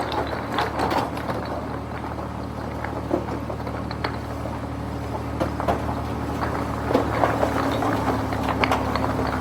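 A vehicle engine running steadily, with scattered short knocks and clicks over it.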